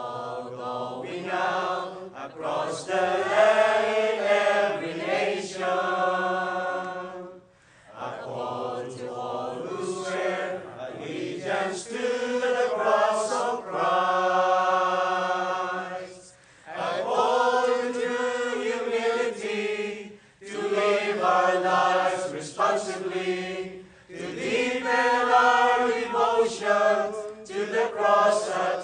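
Mixed choir of men and women singing in phrases of several seconds, with brief pauses between phrases about a quarter, halfway and two-thirds of the way through.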